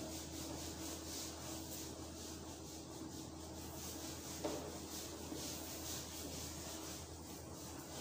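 Whiteboard being wiped clean with repeated back-and-forth rubbing strokes, about two or three a second.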